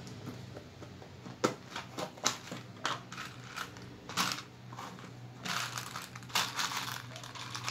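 Small plastic tub being opened and fingers rummaging through the small buttons inside: scattered plastic clicks and rattles, with a longer rustle about five and a half to six and a half seconds in.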